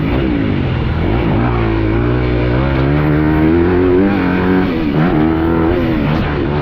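Yamaha YZ450F motocross bike's single-cylinder four-stroke engine ridden hard around the track, the revs climbing steadily for a few seconds, dropping about four to five seconds in, then climbing again.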